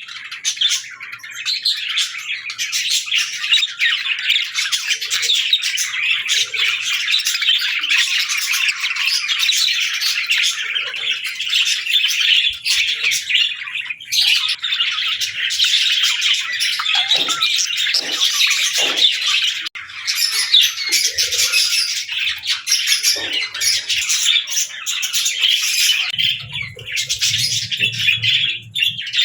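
Several budgerigars chattering and warbling together in a dense, unbroken stream of quick chirps and squawks, with a low hum coming in near the end.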